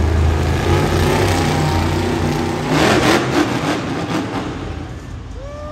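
Monster truck engine running loudly and revving, with a louder surge about three seconds in, echoing in an indoor arena.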